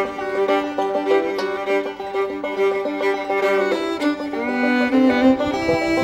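Background instrumental music.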